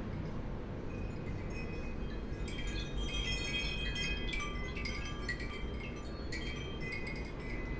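Wind chimes ringing in the breeze. The metal tubes strike together in clusters of clear high tones, starting about two and a half seconds in and again near the end, over a steady low rumble.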